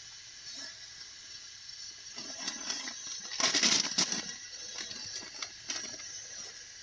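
Cooking gear being handled: light clicks and clatter of a pan and utensils over a steady hiss, with a louder rush of noise about three and a half seconds in.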